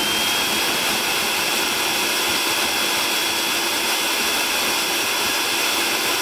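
Electric food processor running at a steady full speed, crushing Oreo cookies into crumbs. A constant, high motor whine sits over the chopping noise.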